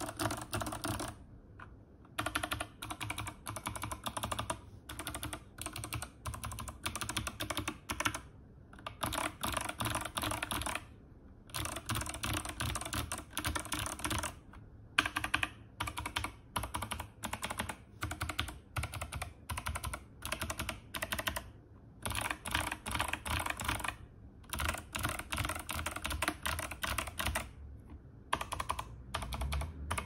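Typing test on a mechanical keyboard with clicky Kailh BOX Jade switches, in a BBOX60 case with MT3 keycaps: fast runs of sharp key clicks, broken every second or two by short pauses.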